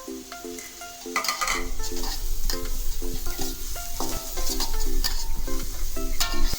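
Food frying and sizzling in a pan while being stirred, with spatula scrapes and light clicks against the pan, starting about a second in and stopping abruptly at the end.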